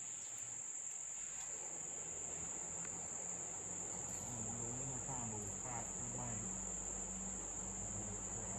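Steady, shrill chorus of insects in summer woods, one unbroken high-pitched drone.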